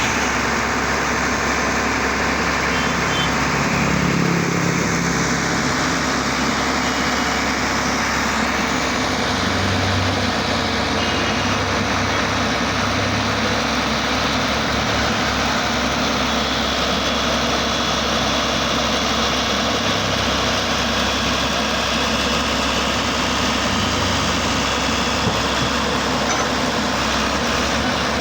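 Engine of an earth-drilling machine running steadily.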